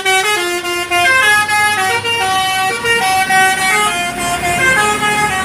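Telolet bus horn, a multi-tone horn on a bus, played loud as a quick tune of held notes that step up and down in pitch, about three notes a second.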